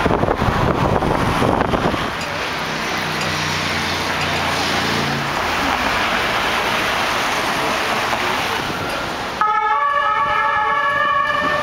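City street traffic: cars passing, with a vehicle engine's low hum from about two seconds in. About two seconds before the end, the sound changes suddenly to a set of steady pitched tones.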